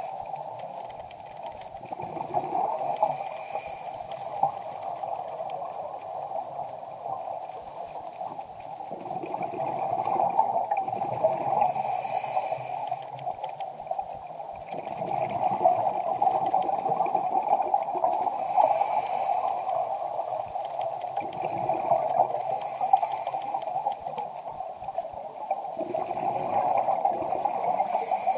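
Underwater ambience: a steady hiss with gurgling water sounds that swell and fade every few seconds.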